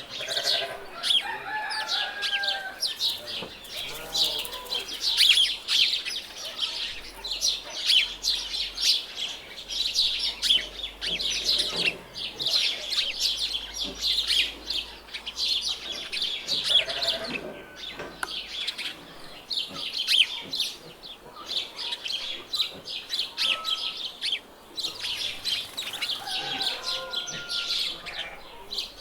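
Farmyard ambience: many small birds chirping continuously, with chickens clucking now and then.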